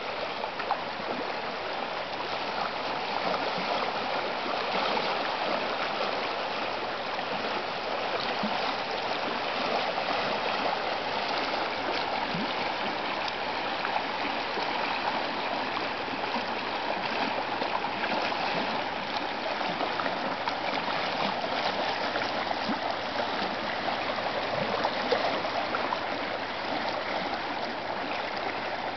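Water rushing and burbling down a normally dry desert wash running with snowmelt or storm runoff, a steady stream sound.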